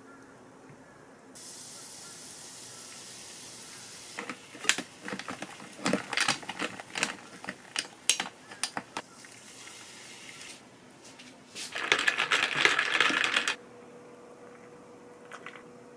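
Plain sparkling water poured over ice and plum syrup in a glass: a steady fizzing hiss with many sharp clicks of ice cracking and clinking. Near the end comes a short, louder rush of fizz and rattling ice.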